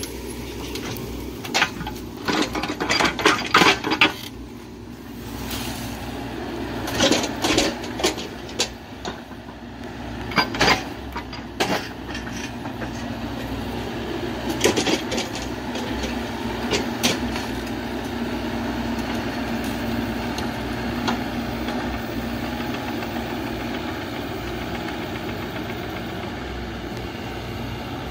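Mini excavator's diesel engine running steadily, with a series of sharp metallic clanks and knocks in the first half as the machine moves on one track, the other having come off.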